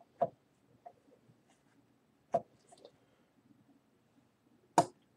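Three short, sharp clicks about two seconds apart, with a few faint ticks between them.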